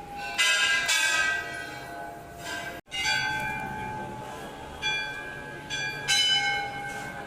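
Hindu temple bells struck by hand, several clangs in quick succession over a ringing that lingers and fades between strikes. The sound drops out for an instant about three seconds in.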